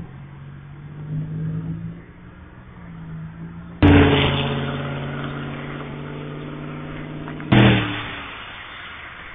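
Passing cars' engines and road noise. An engine drones steadily, then a loud rush of engine and tyre noise starts abruptly about four seconds in and slowly fades. A second abrupt loud rush follows near the end.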